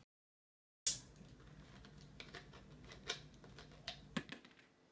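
Dead silence for almost a second, then a sharp knock and a run of irregular light clicks and taps from a plastic soda bottle being handled, over a faint low hum; the clicks die away near the end.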